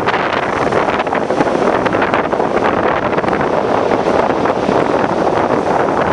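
Storm surf breaking and churning onto a shingle beach, a loud, steady wash of noise, with strong wind blowing across the microphone.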